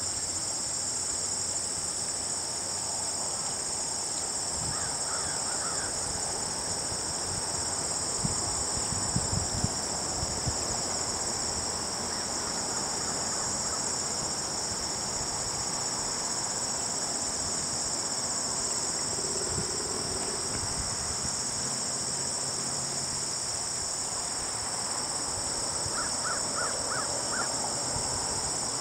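A steady, high-pitched chorus of insects such as crickets, unbroken throughout. A short run of quick bird notes comes about five seconds in and again near the end, and a few soft low thumps come around nine seconds in.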